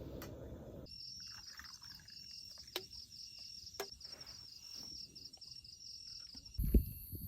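Insects trilling: a high, rapidly pulsing buzz with a fainter steady tone beneath it, broken by a couple of sharp clicks. A low thump near the end is the loudest sound.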